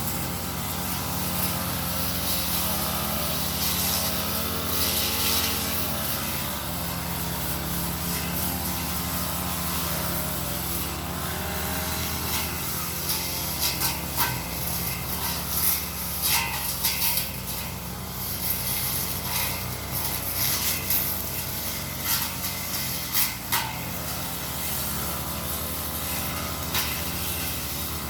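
Brush cutter engine running steadily under load while its blade cuts through undergrowth. From about halfway through, frequent sharp ticks and cracks stand out above the engine.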